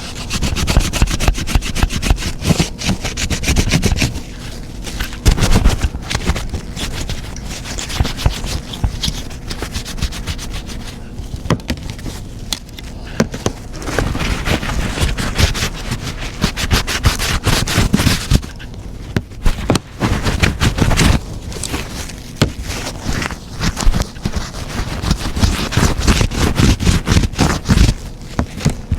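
Scrubbing and scraping in many quick, irregular strokes, as of hand-cleaning, with brief pauses about twelve, nineteen and twenty-four seconds in.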